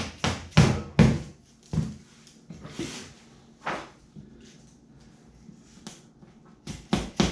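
Light hammer taps: four quick knocks in the first two seconds, a single one a little later, and another quick run near the end. These are skewers or small nails being tapped in to pin the glued kayak skegs while the glue dries.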